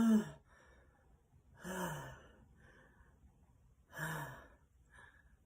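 A person acting out sneezes: three short, breathy vocal bursts about two seconds apart, each falling in pitch, the first the loudest.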